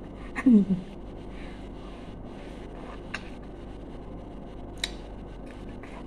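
A woman's short vocal exclamation, falling in pitch, about half a second in. Then a steady low hum with two faint clicks: mouth and lip noises as she sucks on a lemon wedge.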